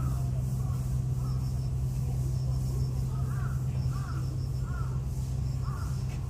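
A crow cawing repeatedly, a short call about every half second to second, over a steady low mechanical hum.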